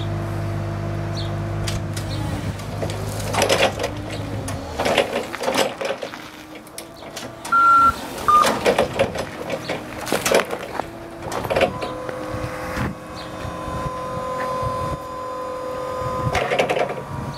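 Clark TM15S 24V electric forklift at work: a steady motor hum at first, then a series of clunks and rattles as it manoeuvres, with a short two-note beep about eight seconds in. From about twelve seconds a steady electric whine sets in, typical of the hydraulic pump motor raising the mast.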